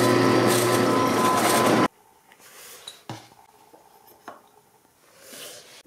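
A drill press running steadily, its countersink bit cutting into a plywood block, stops abruptly about two seconds in. After that, plywood pieces are slid and set down on a wooden bench with a few light knocks.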